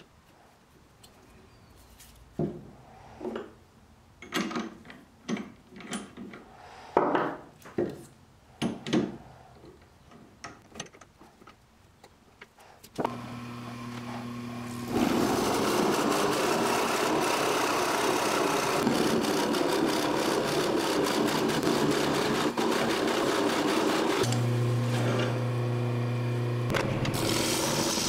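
A series of knocks as a wood blank is handled at a Jet lathe's headstock, then the lathe motor starts with a steady hum about halfway through. A Forstner-type bit in the tailstock drill chuck bores into the spinning wood with a loud, steady cutting noise; after a short stretch of bare motor hum, a gouge cuts into the bowl's inside near the end.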